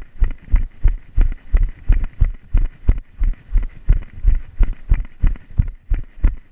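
A runner's footfalls on a dirt trail: a steady, even thud about three times a second, with a brief break near the end.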